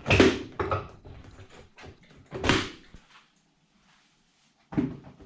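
Clunks and knocks of a motorcycle's rear pillion seat being worked loose and lifted off: a loud clunk at the start, then a few more knocks, the last near the end.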